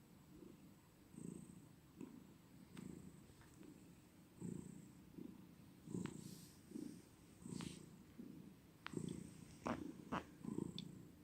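A domestic cat purring close to the microphone, a low rumble that swells and eases with each breath in and out. A few sharp clicks come in over the last few seconds.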